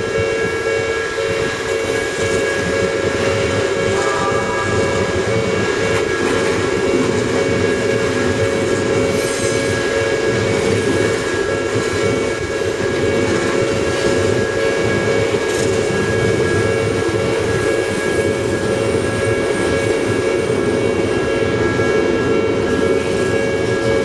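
Japanese level-crossing warning bell ringing on and on beside an Odakyu Odawara Line electric train that is standing at the crossing, with the train's equipment humming underneath.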